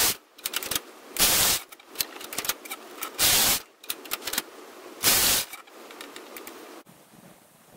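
Brother KH710 knitting machine carriage pushed back and forth along the needle bed. It makes three loud clattering passes about half a second each, roughly two seconds apart, with lighter clicks between them, and goes quiet near the end.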